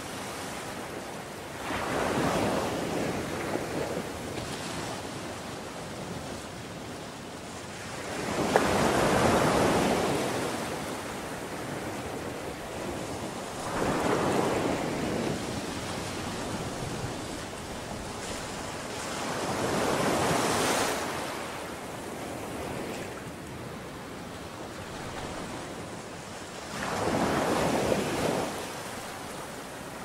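Ocean waves breaking on a beach. Five waves come in, each a rushing swell two or three seconds long, with a softer steady wash between them.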